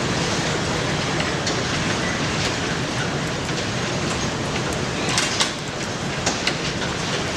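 Strong wind buffeting the microphone: a steady loud rumble and rush with a few light clicks and knocks, easing briefly about five seconds in.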